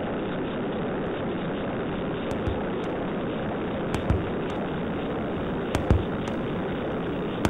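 Yuneec E-Go electric skateboard's wheels rolling over asphalt: a steady rough rumble, with a few sharp knocks from about halfway in.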